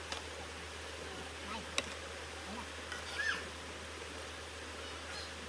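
Riverside outdoor ambience: a steady hiss, with a sharp click about two seconds in and a short falling chirp a little after three seconds.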